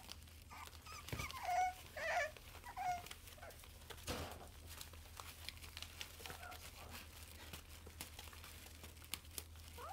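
Young puppies yelping and whining as they play, a handful of short high cries in the first three seconds, with newspaper crinkling under them as they scramble about.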